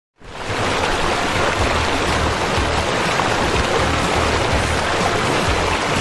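Waterfall's falling water rushing into its plunge pool, a steady full noise with an uneven low rumble underneath, fading in at the very start.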